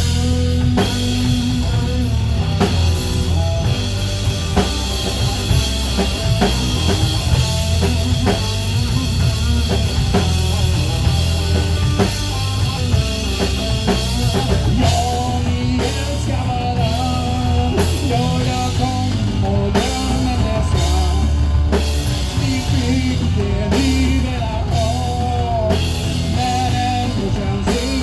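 Rock band music with a drum kit and heavy bass, steady throughout; a wavering melody line comes in about halfway through.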